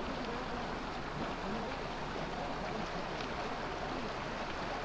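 Motorboat under way at low speed: a steady mix of engine noise and water washing along the hull.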